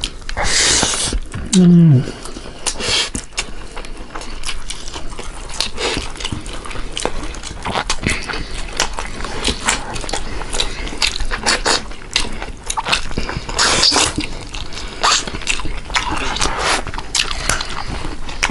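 Close-miked eating of rice and meat curry by hand: wet chewing and lip-smacking clicks throughout, with a brief slurp at the start and a short falling "mm" about two seconds in.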